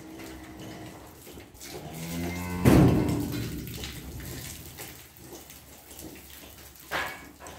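A cow mooing once: a long call that rises in pitch to a loud peak about a third of the way in, then fades. A brief sharp sound follows near the end.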